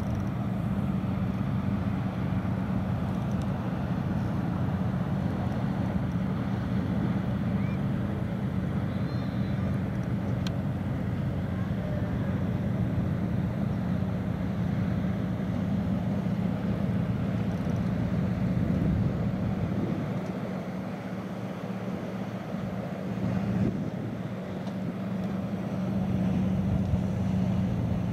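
Fishing boat's engine running steadily under way: a constant low drone over a faint hiss.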